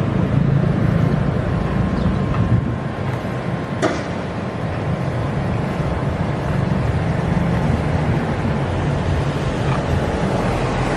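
Steady low rumble of a motor vehicle's engine running, with wind noise on the microphone and a short click about four seconds in.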